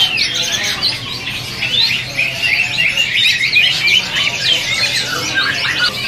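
Many caged birds calling at once: a dense, overlapping chatter of short, high chirps and sliding notes with no pause.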